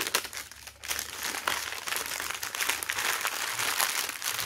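Paper wrapper crinkling and rustling as it is handled, a dense run of fine crackles.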